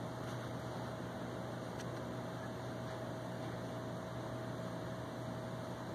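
Steady room tone: an even hiss with a low hum and a faint, thin steady whine, unchanging throughout.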